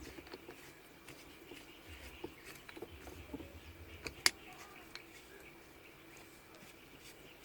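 Faint small clicks and taps as the shift knob's parts are handled and screwed onto the manual gear stick, with one sharper click a little after four seconds in.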